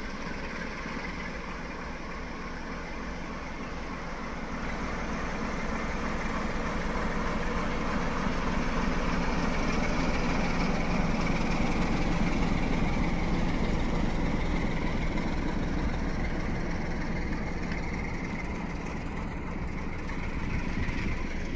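A train's engine running steadily. It grows louder over the first ten seconds or so, then eases slightly toward the end.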